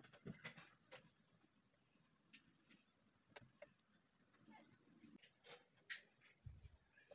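A fork pricking raw shortcrust tart dough in its pan, its tines going through to the pan in faint, irregular clicks and taps, with one sharper click about six seconds in.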